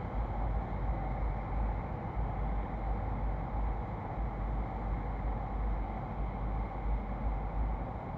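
A steady, deep rumble with an even hiss above it, with no breaks or separate events.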